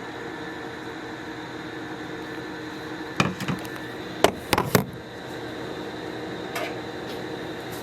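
Steady appliance-like hum with a few short knocks and clatters, two brief clusters about three and four and a half seconds in, from puppy food being mixed with milk in a container.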